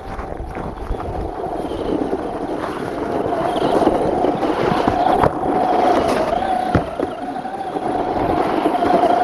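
Electric motor of a 4x4 RC truck whining as it drives through snow, the pitch wavering slightly with the throttle, with a couple of short knocks partway through.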